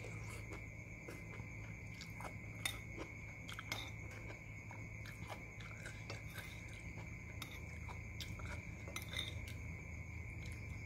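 Close-up eating sounds: chewing and biting on chicken feet and soto, with scattered clicks of a spoon against the bowl.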